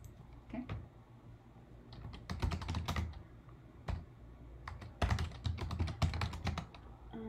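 Typing on a computer keyboard: two quick runs of key clicks, the first about two seconds in and the second about five seconds in.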